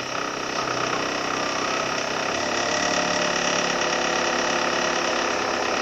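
A car running steadily with an even mechanical hum, switched on just before and holding a constant pace.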